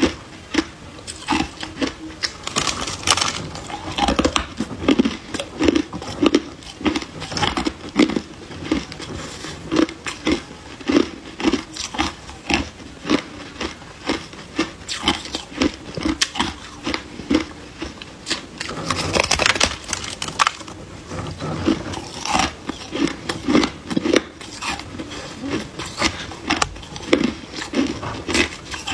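Crushed ice being bitten and chewed close to the microphone: a dense run of crisp crunches, several a second, with louder bursts of crunching about three seconds in and again around nineteen to twenty seconds.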